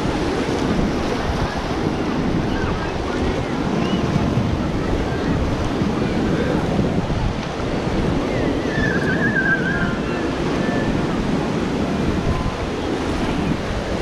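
Atlantic surf washing on the beach, with wind buffeting the microphone in a steady rush. A brief high wavering call sounds a little past the middle.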